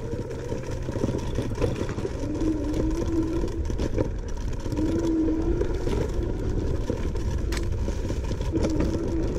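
Electric scooter ridden off-road: the motor whines, its pitch wavering with speed, over a low rumble of wind and ride noise. There are a couple of sharp knocks from the scooter jolting over rough ground.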